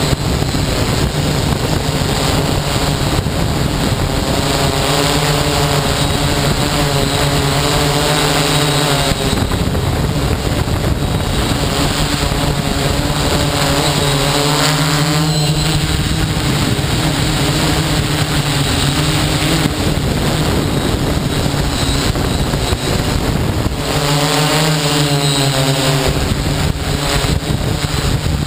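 Hexacopter's electric motors and propellers running in flight: a pitched hum that comes and goes several times and wavers in pitch, over a constant rush of wind on the microphone.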